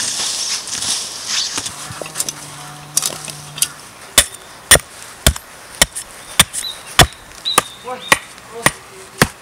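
Digging and scraping in loose forest soil with a long-handled digging tool. About four seconds in, a steady run of about ten sharp, evenly spaced blows on a wooden stake begins, nearly two a second, some with a brief ring.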